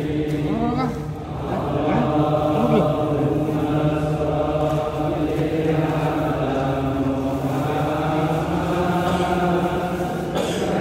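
A group of men's voices chanting in unison, holding long drawn-out notes.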